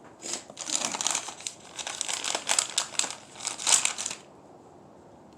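Plastic bait packaging crinkling and rustling in a string of bursts for about four seconds as it is handled and opened.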